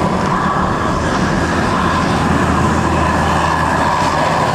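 A large bus's diesel engine running as it passes close by, with a steady high whine over the engine hum.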